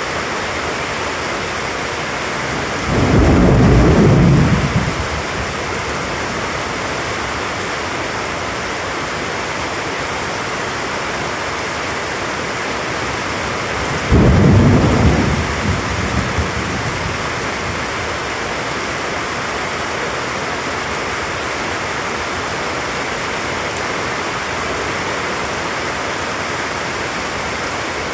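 Steady heavy rain of a thunderstorm, with two low rolls of thunder: one about three seconds in, and a second, more sudden one about fourteen seconds in that rumbles on for a couple of seconds.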